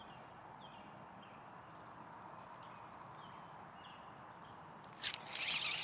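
Quiet outdoor ambience with faint, short high chirps from small birds and a few light clicks; about five seconds in, a sudden burst of hissing noise lasting about a second.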